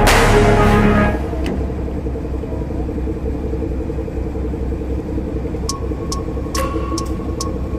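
Background music cuts out about a second in, leaving a tugboat engine running with a steady low rumble. A few sharp clicks come near the end.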